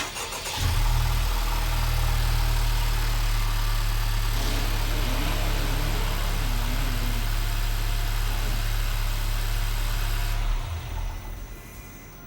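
Honda Civic Type R's turbocharged 2.0-litre four-cylinder engine starting about half a second in, idling steadily, and shutting off near the end.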